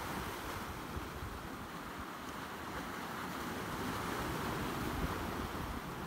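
Small sea waves washing and breaking over rocks along a rocky shore, a steady rush of surf that swells a little about four seconds in, with wind rumbling on the microphone.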